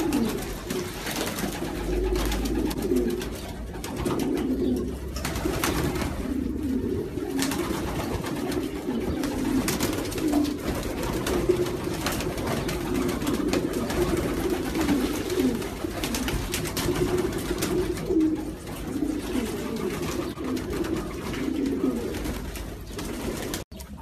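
A flock of domestic pigeons cooing, many low coos overlapping into a steady chorus, with scattered short splashes and flutters from birds bathing in water. The sound cuts out for a moment near the end.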